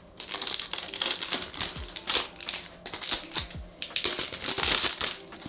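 Crinkling and clicking of packaging being handled and unwrapped from a perfume box, a rapid irregular crackle.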